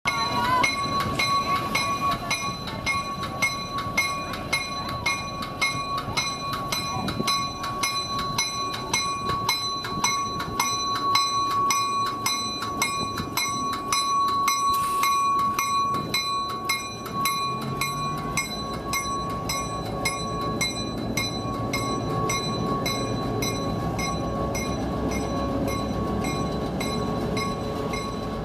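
Santa Cruz Big Trees & Pacific Railway diesel locomotive passing slowly, close by, with a bell ringing in rapid, even strokes. The bell fades about halfway through as the locomotive's engine running low and heavy comes to the fore, followed by the passenger coaches rolling past.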